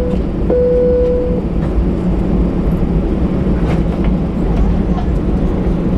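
Airbus A319 cabin noise while taxiing: a steady low rumble of the engines at low power with airflow hiss. A steady mid-pitched humming tone sounds once more in the first second and a half, then stops.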